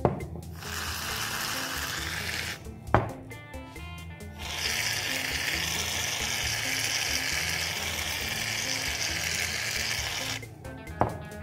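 Aerosol can of shaving foam spraying in two long hisses, the second lasting about six seconds, with a sharp click before each. Background music plays under it.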